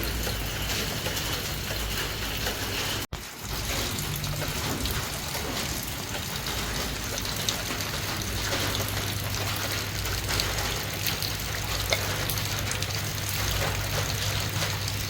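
Steady water noise with scattered small ticks, cutting out abruptly for a moment about three seconds in.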